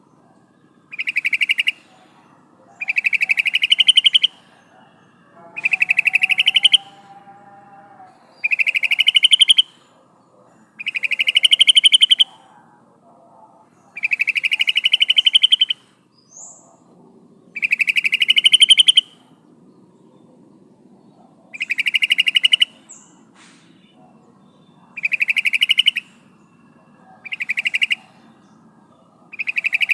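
Female yellow-vented bulbul (trucukan) giving its call to attract a male: a short, rapid chattering call, each about a second long and rising slightly in pitch, repeated about every two to three seconds, eleven times. Fainter bird calls sound underneath.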